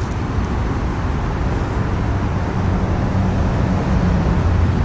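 Steady low rumble, with a faint hum that grows a little firmer after about three seconds.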